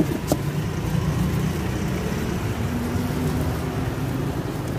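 Steady low engine-like rumble, with a sharp knock right at the start and a lighter click just after it as the lid of a chest is shut.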